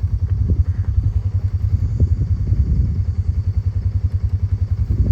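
An engine idling with an even, rapid low throb.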